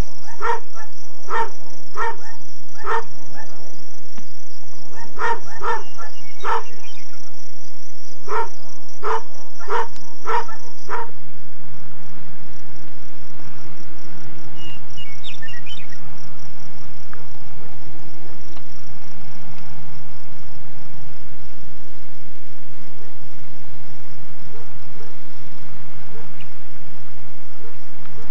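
A dog barking repeatedly in short runs, about two barks a second, over a steady high-pitched insect trill. The barking stops about eleven seconds in, leaving the faint trill and a low steady hum.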